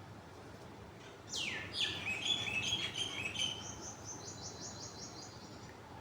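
A songbird singing one high phrase: a falling whistle about a second in, a run of quick chattering notes, then a fast, even high trill that stops near the end.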